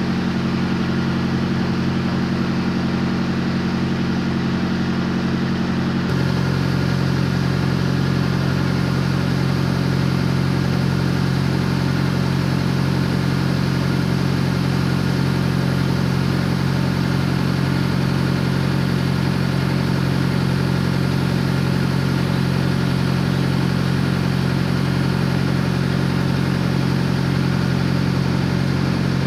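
Steady diesel hum from a parked refrigerated tractor-trailer, its engine idling and its trailer's Carrier Transicold Vector 8600MT refrigeration unit running. About six seconds in, the hum shifts to a lower pitch and grows a little louder.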